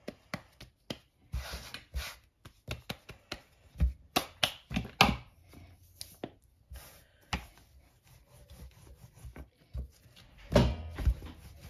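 Hands patting and pressing a ball of dough flat, heard as irregular soft taps and knocks, then a rolling pin pressing and rolling over the dough on a silicone mat near the end.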